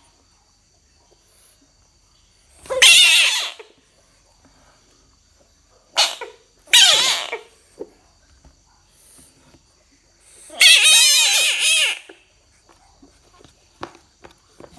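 A frog giving four loud, high-pitched, wavering squeals. The first comes about 3 seconds in, a short one and a longer one follow around 6 to 7 seconds, and the longest, over a second, comes near 11 seconds.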